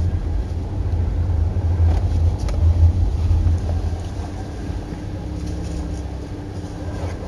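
Low, steady rumble of a car's engine and road noise, heard from inside the cabin while driving, easing off a little about halfway through.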